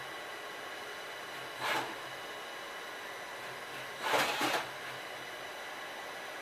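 Johnford SV-32 CNC vertical machining centre running with a steady hum, broken twice by short rushes of noise as its axes make rapid moves: a brief one near two seconds in and a longer, louder one about four seconds in.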